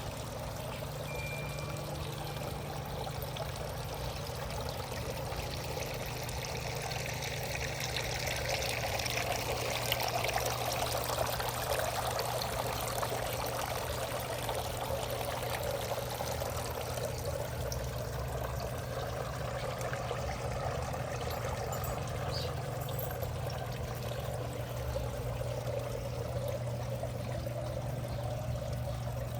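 Water running and pouring steadily, swelling louder for several seconds around the middle, over a steady low hum.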